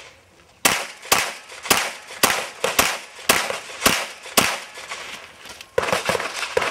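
Gunshots from a 9mm Glock 17 pistol with an extended barrel: a steady string of eight shots about two a second, then a pause of about a second before a quicker run of shots near the end.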